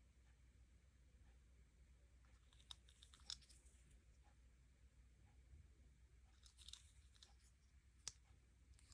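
Near silence with faint clicks and crinkles of packaging being handled, in two short clusters, around three seconds in and again between about six and eight seconds.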